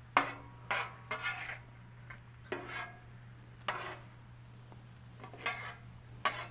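Two metal spatulas scraping and clinking on a Blackstone steel griddle as candied sweet potato chunks are stirred and tossed, about seven strokes spaced unevenly. A sizzle and a steady low hum sit underneath.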